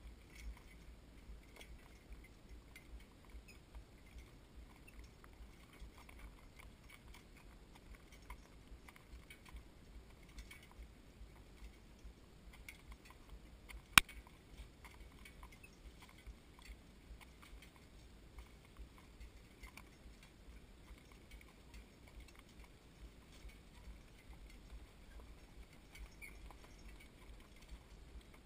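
Faint hoofbeats on a dirt and gravel lane with harness hardware jingling and clinking, heard from the cart the animal is pulling. About halfway through there is one sharp, loud click.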